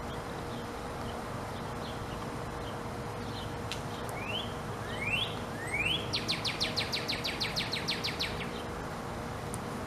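Northern cardinal singing: a few faint short notes, then three rising slurred whistles, then a fast even run of about twenty short notes lasting about two seconds, over steady background hiss.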